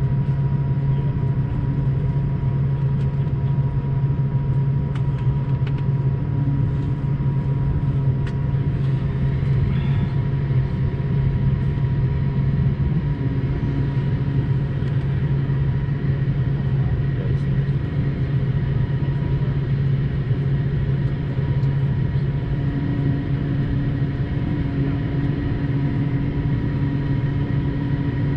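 Steady cabin noise of an Airbus A220-300 in flight: a low hum from its Pratt & Whitney PW1500G geared turbofans under an even airflow rush, with a thin steady whine above it.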